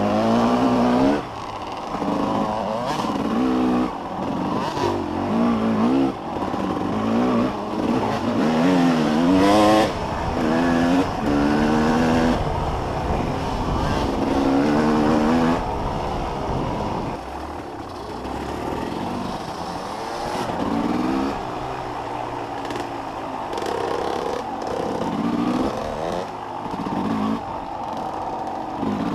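Off-road dirt bike engine revving up and down again and again while riding, its pitch rising and falling every second or two.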